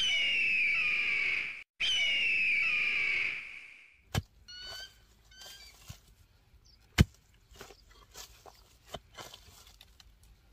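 Two long, high, wavering cries of a bird of prey, each about two seconds long, one right after the other. Then a pickaxe strikes into the soil twice, about three seconds apart, with faint bird chirps and small knocks in between.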